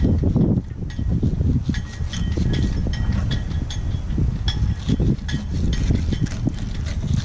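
Wind buffeting the microphone in gusts, with a scatter of short, high chirping ticks throughout.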